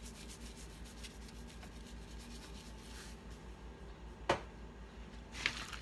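A Cajun seasoning shaker can being shaken over raw chicken on a metal sheet pan: faint quick rattling taps for about the first three seconds, then one sharp click a little past four seconds in.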